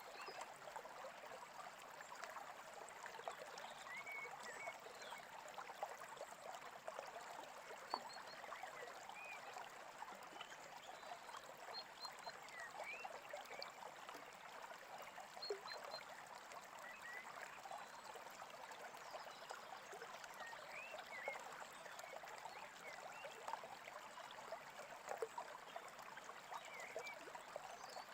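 Small stream babbling and trickling steadily, with faint short bird chirps scattered through it.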